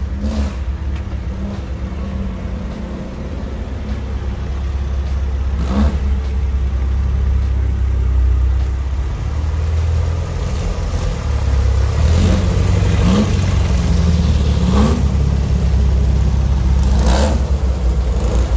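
Dune buggy engine idling, with a short throttle blip every few seconds; it grows louder as the buggy pulls up close near the end.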